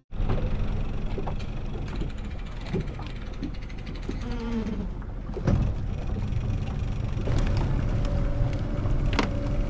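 Small boat's motor running steadily at low speed with a buzzing hum, under wind and water noise, while the boat moves slowly across the water.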